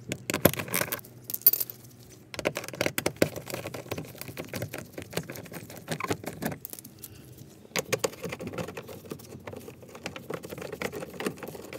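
Socket wrench ratcheting in quick runs of clicks, with metal sockets rattling, as the front bumper's mounting bolts are undone from underneath.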